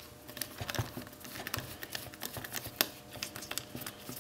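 Hand screwdriver turning Torx screws out of a flow meter's metal housing: a run of small, irregular clicks and ticks, with one louder click near the three-second mark.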